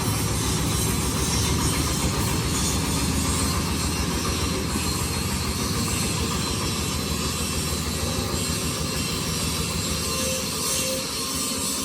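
Diesel-engine-driven corn sheller running steadily, the engine's low rhythmic thudding under the clatter of the machine.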